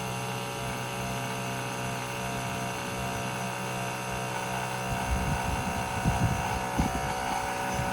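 Bauer 1.6-gallon cordless air compressor running, filling its tank from empty and nearing 60 psi: a steady, pretty quiet hum. From about five seconds in, a few low thumps sound over it.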